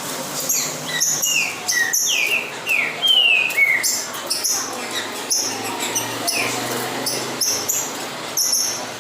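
Coleiro (Sporophila seedeater) singing over and over, in phrases of quick downward-sliding whistles mixed with short buzzy notes, in a song duel against a rival male.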